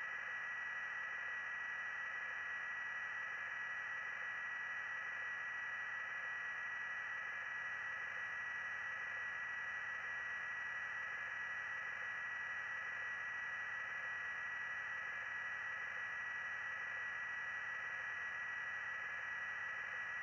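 Steady hiss of an open radio or intercom audio channel, with a constant high tone running through it.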